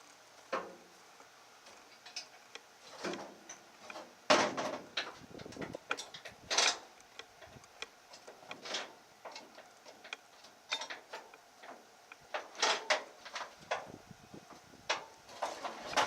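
Irregular clicks, clunks and knocks of hand tools and parts being handled while stripping a pickup truck, with the loudest knocks about four and six and a half seconds in.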